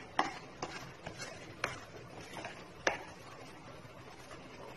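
A spatula knocking and scraping against a non-stick kadhai while stirring a thickening milk-powder peda mixture: a handful of irregular clicks, the loudest about three seconds in.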